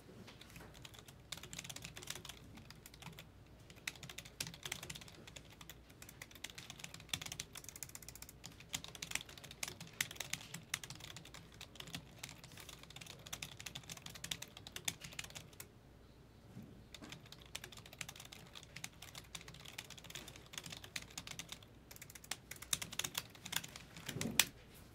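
Quiet typing on a computer keyboard: rapid, irregular key clicks in runs with short pauses, and one louder brief knock near the end.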